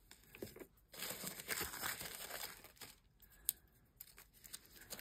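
Tissue paper crinkling and rustling as it is handled and folded flat. There is a lull, then a single sharp tick, before the rustling picks up again.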